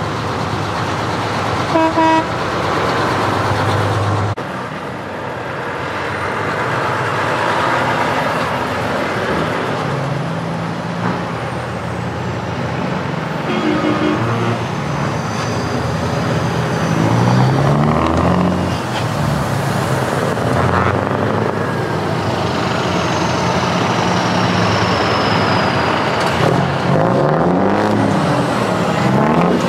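Heavy trucks' diesel engines running as the trucks drive past one after another, the engine pitch rising and falling as they pull away and pass. Two short horn toots sound, one about two seconds in and one about halfway through.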